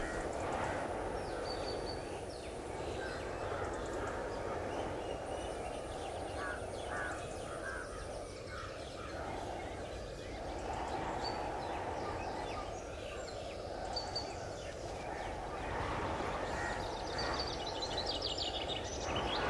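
Open-air ambience: a steady wind rush, with birds giving short scattered chirps and calls, and a quick run of repeated chirps near the end.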